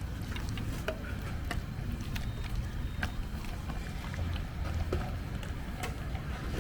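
Wok cooking at a street-food stall: a steady low rumble, with scattered light clicks and clinks of metal utensils.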